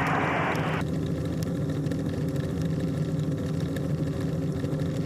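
Steady drone of a small aircraft's engine, heard inside the cabin. A thin, radio-like hiss over it cuts off just under a second in.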